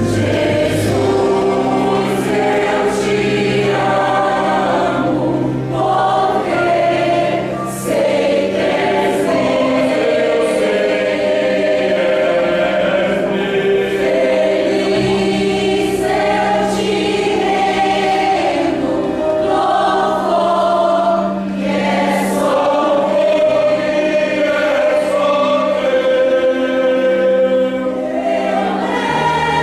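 Mixed church choir singing a Christian song in Portuguese, with steady low held notes sounding beneath the voices.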